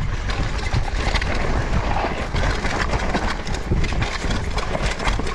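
Mountain bike ridden fast down a dirt singletrack, tyres running over dirt, leaves and roots with a constant rapid clatter from the bike, over a low rumble of wind on the microphone.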